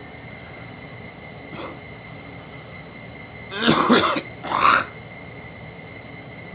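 A person with a cold coughing twice in quick succession, a little past the middle, after a faint short sound earlier on.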